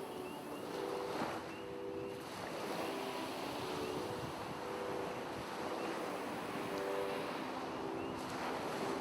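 Background music: sustained synth chords that shift every second or so, over a steady hiss.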